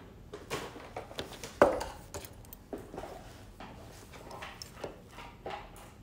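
Small handling noises: scattered light clicks and taps of a plastic brush-cap nail-product bottle and tools being handled on a table, with one louder knock about a second and a half in.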